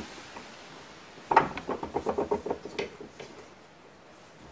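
Light metallic clinks and knocks from about a second in, lasting about two seconds, as a motor armature and its ball bearing are seated on the bed of a hand-wheel arbor press.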